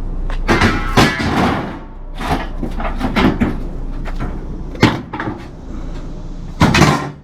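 A series of sudden clunks and knocks, about six of them, with the heaviest one near the end.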